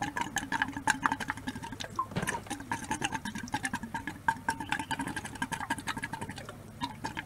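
Small irregular clicks and light plastic rattling as a clear plastic FlowVis flow meter insert is handled and its O-ring is lubricated, over a faint steady background hum.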